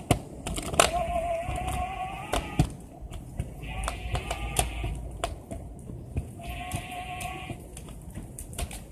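Small scooter wheels rolling along a concrete sidewalk, with irregular clicks and knocks over joints and bumps and a low rumble. A hiss and a thin squeal come and go in stretches about every two to three seconds.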